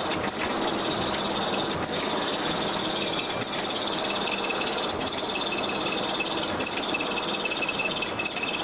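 Rotary capping machine on a PET-bottle filling and capping line running: a steady mechanical clatter and hum with scattered light clicks. A thin, steady high whine joins in about halfway.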